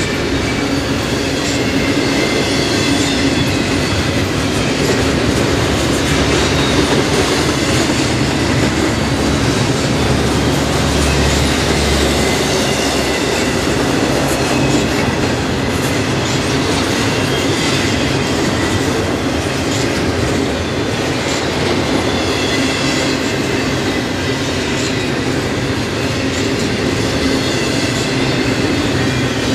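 Loaded double-stack container well cars of a freight train rolling steadily past at close range: an even, unbroken rumble and rush of steel wheels on rail.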